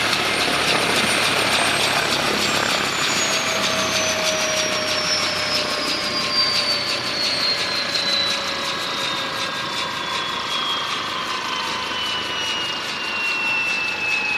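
Bell 204B helicopter's Lycoming T53 turboshaft spooling down after shutdown: a high turbine whine falling steadily in pitch over a steady rush of engine and rotor noise, with the main rotor still turning.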